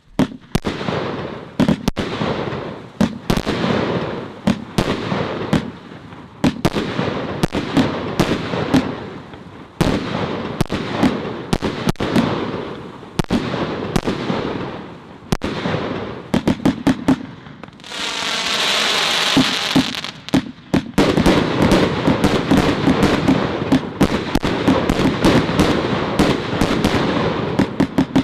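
Celtic Fireworks 'Shimmer & Shine' multi-shot firework cake firing: a rapid run of shots launching from its tubes and bursting, with crackle after the bursts. About two-thirds of the way through comes a steady hiss of about two seconds.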